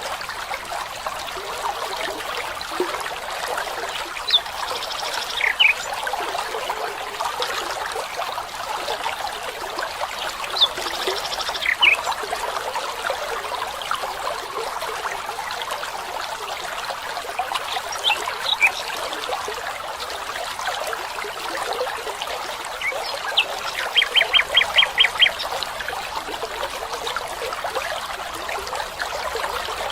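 Steady trickle of running stream water with bird calls over it: a few short chirps spread through, and later a quick run of about eight evenly spaced notes.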